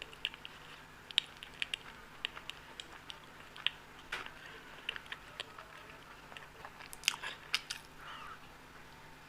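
Close-up eating sounds of a person chewing soft Indian sweets: irregular wet mouth clicks and lip smacks, several a second, with a small cluster of sharper smacks about seven seconds in.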